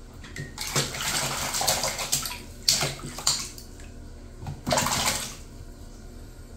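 A baby splashing and slapping the shallow water of a small plastic baby bathtub with the hands, in bursts: a run of splashing about a second in, two sharp slaps around three seconds, and another run of splashing around five seconds.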